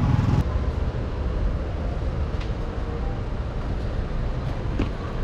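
Motor scooter moving slowly through city traffic: a steady low engine and road rumble, with a few faint clicks.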